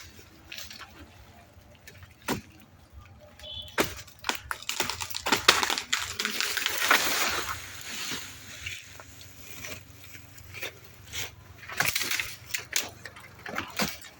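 Water sloshing and splashing, loudest from about four and a half to eight seconds in, with scattered sharp knocks.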